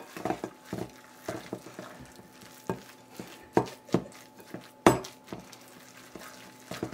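Spoon stirring a thick banana and oat cookie dough in a mixing bowl, with irregular knocks and scrapes of the spoon against the bowl. The sharpest knocks come at the start and about five seconds in.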